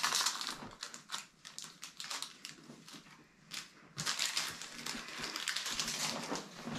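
Foil wrapper of a Pokémon card booster pack crinkling as the pack is opened and handled, in two spells of crackling, the longer one starting about four seconds in.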